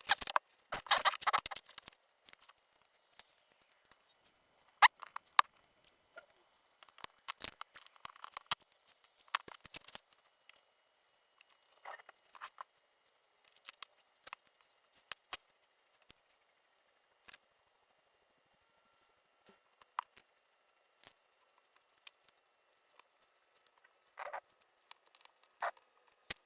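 Small metal lock parts and tools clicking and clattering as an MTL800 lock cylinder is taken apart by hand. The clicks are scattered and irregular, with a quick clatter of several clicks at the start and short bursts again about a third of the way in and near the end.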